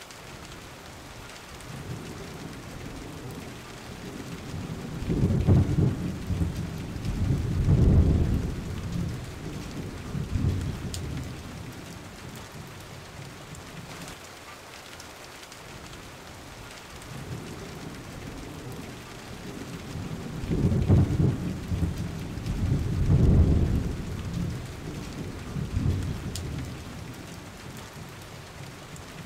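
Rain-and-thunder ambience track: a steady hiss of rain with two long, low rolls of thunder about fifteen seconds apart, each swelling and fading over several seconds.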